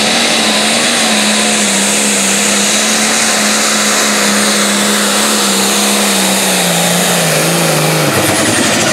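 Light Pro Stock pulling tractor's turbocharged diesel engine running hard at full throttle while dragging the weight-transfer sled. Its pitch sags slowly as the load builds. About eight seconds in, the engine note changes abruptly.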